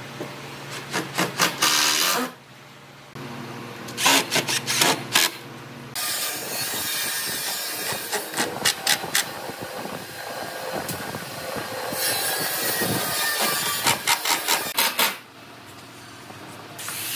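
Cordless drill driving screws into a pine boat frame in several stop-start bursts, the wood rattling and knocking as the screws bite.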